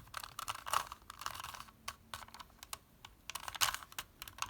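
Rubik's Cube being twisted quickly by hand, its plastic layers clicking and clacking in irregular flurries as the move sequence for the yellow cross is turned. The clicking stops shortly before the end.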